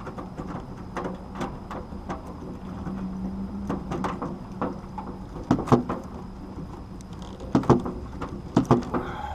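Scattered clicks and knocks of hand tools and wires being worked at an air conditioner's electrical box, with three louder clusters of knocks in the second half, over a steady low hum.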